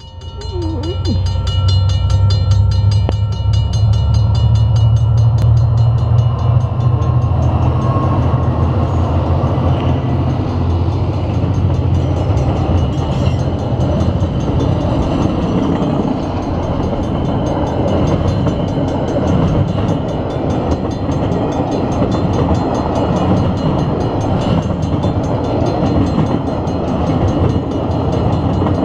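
A freight train passing close by, led by DFB and DFT class diesel-electric locomotives. The locomotives' engine drone swells in the first second or two and is heaviest for several seconds. Then container wagons roll past with a steady rumble and rattle of wheels on rail.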